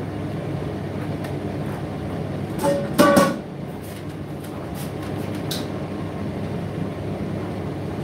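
Indesit IDC8T3 condenser tumble dryer running, its drum turning with a steady rumble as the load tumbles, with a louder clank about three seconds in.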